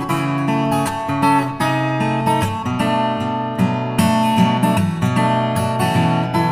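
Background music played on acoustic guitar, with plucked and strummed notes in a steady flow.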